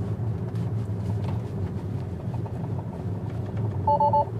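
Steady road and tyre noise inside a moving Tesla's cabin. Near the end, a quick triple chime sounds: the car refusing to engage Autopilot on this road.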